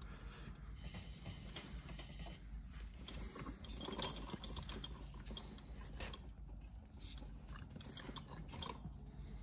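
Thread tap in a T-handle wrench being turned by hand into a drilled-out bolt hole in an aluminium cylinder head, cutting a new thread for a helicoil insert. Faint scattered clicks and metal-on-metal scrapes, with one slightly louder click about four seconds in.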